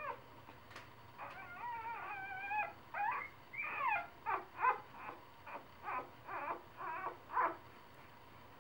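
Three-day-old puppies whimpering and squealing: a thin, wavering cry, then a string of short high squeaks about twice a second that stops about a second before the end.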